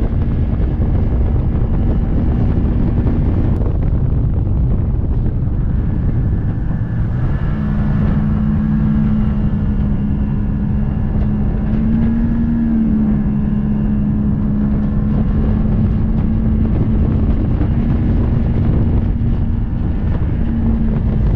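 Bass boat's outboard motor running at speed with a steady droning hum, under heavy wind buffeting the microphone; the engine note firms up and shifts slightly in pitch about seven seconds in.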